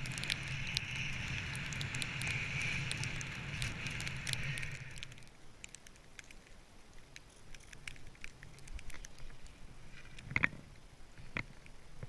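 Skiing through deep powder with the action camera on the skier: a steady rush of air and snow on the camera for about five seconds, scattered with small ticks of snow. It then gives way to a quieter crackle of snow against the camera, with two sharper knocks near the end.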